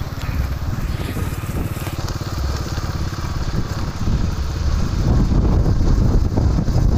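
Motorcycle running while being ridden over brick paving, with wind rumbling on the microphone. It gets louder about two-thirds of the way through.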